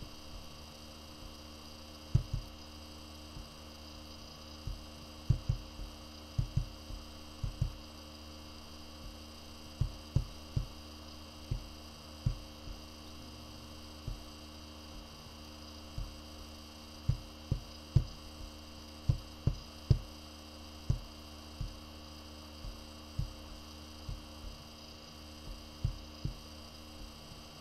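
A steady electrical hum runs under irregular dull, low thumps, often coming in quick pairs.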